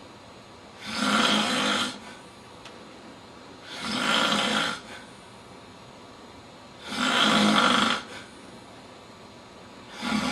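A man snoring in a steady rhythm, one snore about every three seconds. Three full snores are heard, and a fourth begins right at the end.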